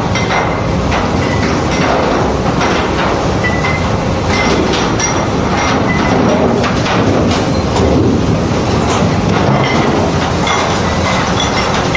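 Kitchen-waste sorting machine running: a paddle rotor turns over a perforated steel screen and tumbles food waste against it. The result is a steady loud mechanical rumble with irregular clattering knocks and brief high metallic squeaks.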